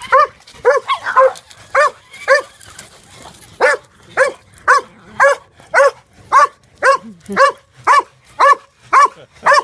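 A dog barking repeatedly in short, high barks. A few uneven barks come first, then a brief pause, then a steady run of about two barks a second.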